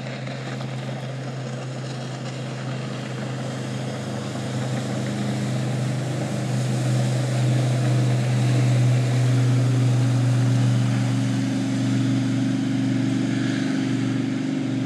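Aluminium jet sled (jet-drive river boat) running fast past the bank: a steady engine drone that grows louder toward the middle as the boat passes close, then eases a little.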